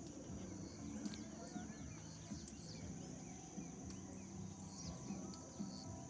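Outdoor ambience: a steady high insect drone with scattered bird chirps, a few sharp clicks, and a low rumble underneath.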